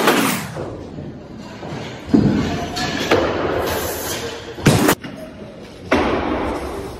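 Heavy barbell with bumper plates being power-cleaned and dropped onto rubber lifting mats: a series of heavy thuds and slams that echo in a large room, the sharpest about two-thirds of the way through, followed by another thump about a second later.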